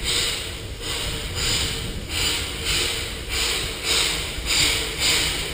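Exhaust of the narrow-gauge 2-6-2T steam locomotive 6A working its train, chuffing steadily about twice a second.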